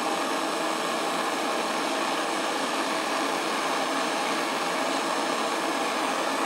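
A steady rushing hiss, even throughout with no breaks or changes.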